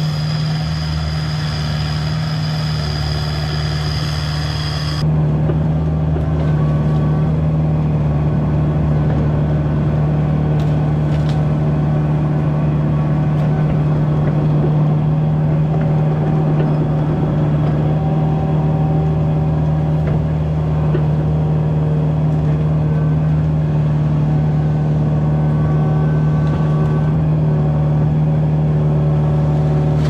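Kubota mini excavator's diesel engine running steadily under working revs while the bucket digs out a beaver dam, with a faint hydraulic whine over the engine note. About five seconds in, the sound turns louder and duller, heard from the operator's seat.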